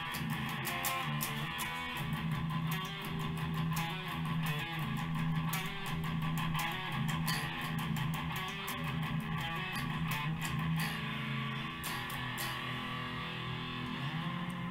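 Electric guitar being played, a steady run of notes that goes on without a break.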